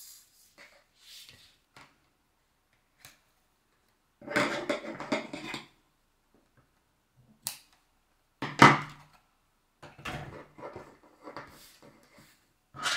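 Cotton fabric rustling and crumpling as it is gathered along elastic threaded through a scrunchie tube, with light knocks of hands and fabric on a wooden desk. It comes in separate bursts, the longest about four seconds in and the loudest, sharpest one near the middle.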